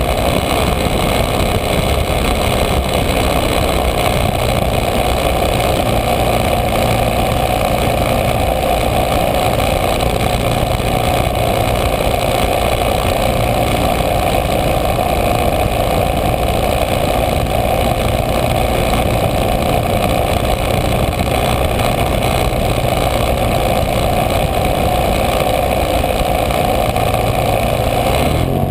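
Model airplane's fuel-burning engine running steadily in flight, heard from a camera mounted just behind the spinning propeller.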